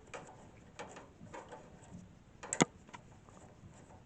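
Light clicks and taps of a screwdriver and screw fastening a graphics card's bracket to a PC case, with one sharp click about two and a half seconds in.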